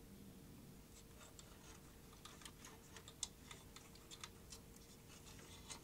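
Faint, scattered small clicks and taps of plastic and metal parts being handled as a Philips DCC900 cassette deck's circuit board and mechanism are fitted back into the chassis, starting about a second in, with a faint steady hum underneath.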